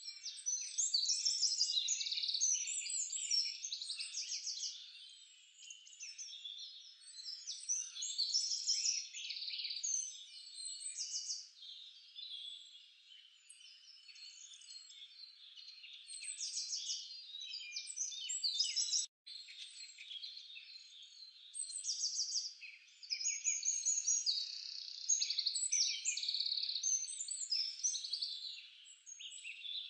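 A dense chorus of high chirping and trilling animal calls, swelling and fading in waves, with a sudden brief dropout about two-thirds of the way through.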